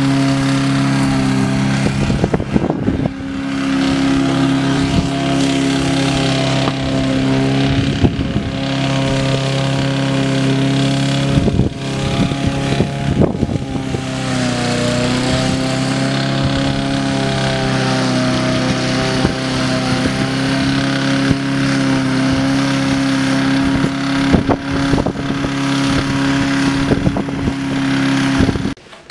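Walk-behind gas lawn mower's small engine running steadily while mowing, its note dipping briefly about halfway through and then recovering, with a few scattered clicks.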